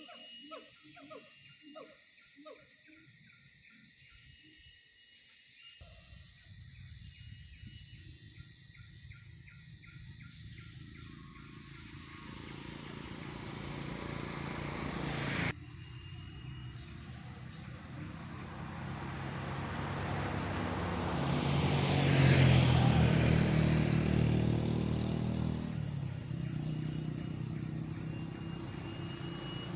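A bird's call repeated rapidly, about two calls a second, stopping about six seconds in. Later a vehicle passes on the road, swelling to its loudest a little past the twenty-second mark and then fading, over a steady high tone.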